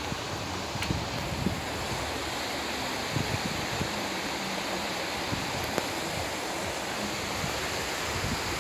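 Wind buffeting the microphone in uneven low rumbles, over a steady rushing hiss of outdoor air.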